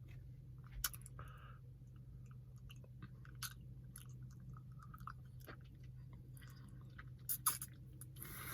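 Faint chewing and mouth clicks: scattered quiet clicks, with two louder ones near the end, over a low steady hum.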